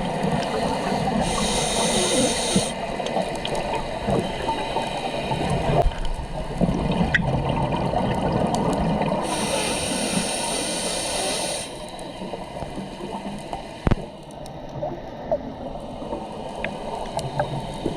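Scuba diver breathing through a regulator underwater: two long hissing inhales, with bubbly, gurgling exhaust between them, and a single sharp knock near the end.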